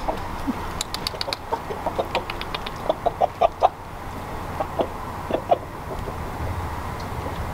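Cockerel clucking in a run of short, low notes, several in quick succession about three seconds in, then a few more before they stop.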